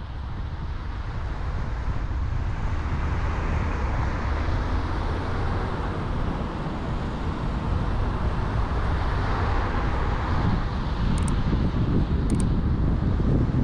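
Car driving noise: a steady rumble of road and engine that fades in at the start and grows a little louder and deeper toward the end. Two short, thin, high clicks come a little before the end.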